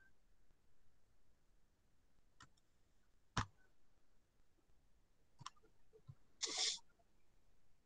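Faint, scattered computer mouse clicks a second or two apart, the loudest about three and a half seconds in, then a short burst of noise about six and a half seconds in.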